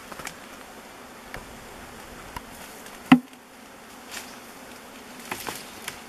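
Large honey bee swarm buzzing steadily in the air, with one sharp knock about three seconds in and a few lighter ticks near the end.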